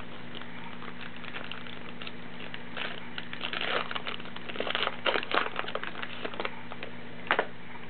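A baseball card pack's wrapper being torn open by hand, crinkling in irregular bursts, with one sharp crackle near the end.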